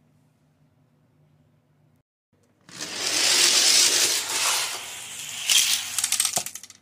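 Die-cast toy karts rolling fast along plastic Hot Wheels track: a loud rattling hiss that starts suddenly about two and a half seconds in, after near silence, and breaks into a quick run of clicks near the end.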